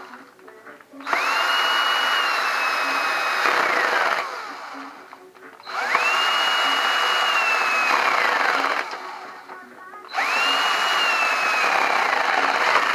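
Power drill/driver running in the screws of a motorcycle engine's clutch cover, three runs of a few seconds each. Each run's motor whine rises quickly to a steady high pitch, then falls as the drill slows and stops.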